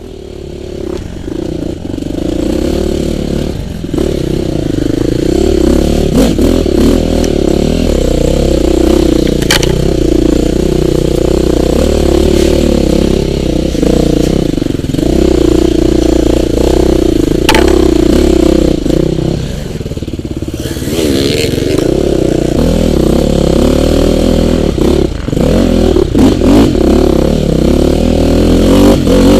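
Enduro dirt bike engine running under load, its pitch rising and falling as the throttle is worked, with a brief easing off about two-thirds of the way through. Two sharp clicks stand out over the engine.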